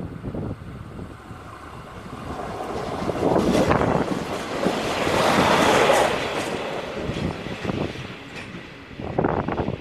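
ČD Regionova diesel multiple unit (class 814/914) passing close by. The noise swells to a peak mid-way and then fades as it goes, with wheels clattering on the rails.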